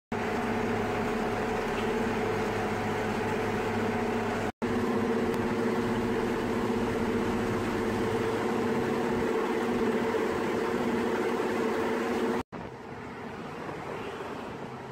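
A Rosenbauer Panther fire truck's large diesel engine running steadily at close range, with a steady mechanical hum. It breaks off for an instant twice and is quieter after the second break.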